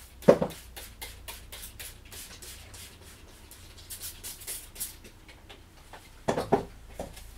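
Spray bottle squirting degreaser in many short hissing bursts, a few a second, with a louder knock near the start and more knocks about six seconds in.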